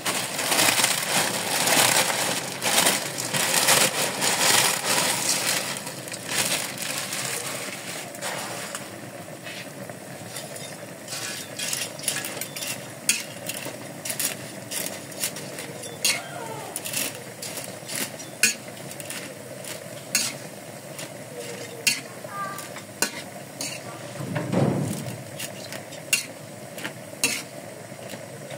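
Metal spatula stirring and tossing noodles in a sizzling aluminium wok. A loud, dense sizzle and stirring for the first eight seconds or so, then a quieter sizzle broken by sharp scrapes and taps of the spatula against the wok, about one or two a second.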